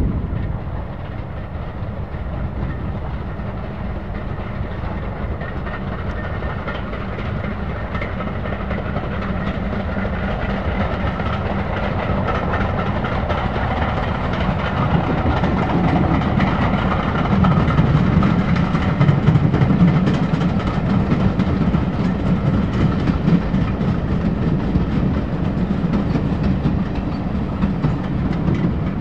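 A two-cylinder LMS Stanier Class 5 4-6-0 steam locomotive running under steam as it approaches and passes close by. It grows steadily louder and is loudest about two-thirds of the way through.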